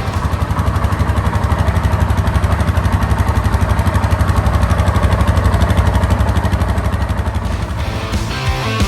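Suzuki KingQuad 750 ATV's single-cylinder engine running through its exhaust: a fast, low pulsing that swells gradually and eases off near the end.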